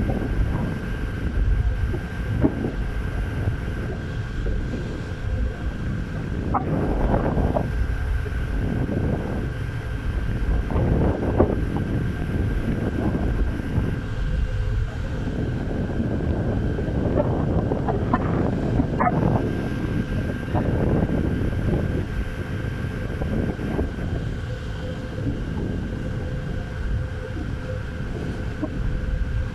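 Wind buffeting the microphone, a heavy rumble that surges and eases, with a faint steady hum underneath.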